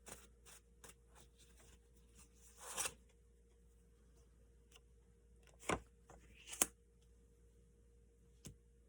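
Tarot cards being handled and drawn: faint soft clicks and taps, a short rising hiss about three seconds in, and two sharper snaps a second apart past the middle, over a faint steady room hum.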